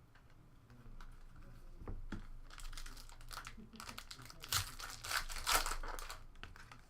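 Foil trading-card pack wrapper crinkling and tearing as a pack is opened. A run of crackly rustles builds about two seconds in and is loudest just past the middle before fading out.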